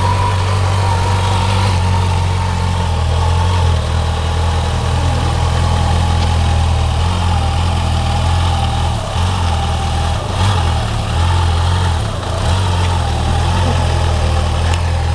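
Kawasaki Ninja ZX-6R 600cc inline-four sportbike engine running at low, fairly steady revs as the bike is ridden slowly through tight turns, the pitch rising and falling slightly.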